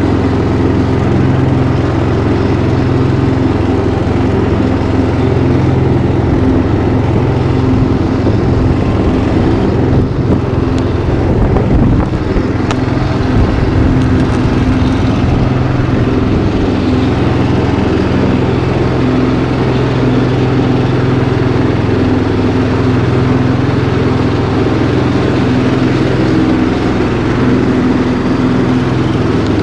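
Riding lawn mower's engine running steadily while cutting grass, briefly rougher for a few seconds near the middle.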